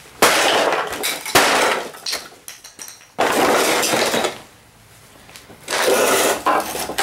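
A Toro Power Curve 1800 electric snow blower being smashed apart: four heavy blows, each followed by about a second of cracking and clattering as its housing breaks up.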